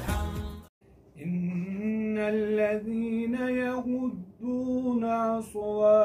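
A man's voice reciting the Quran in Arabic in a slow melodic chant, holding long notes that glide up and down. It begins about a second in, after a short burst of music cuts off into a brief silence.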